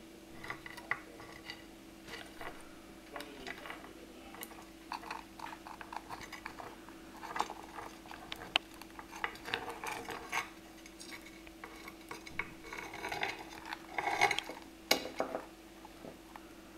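Caribbean hermit crabs (purple pinchers) clambering over slate and a plastic bowl: irregular clicks, taps and scrapes of their legs and shells on hard surfaces, busiest and loudest a couple of seconds before the end. A faint steady hum runs underneath.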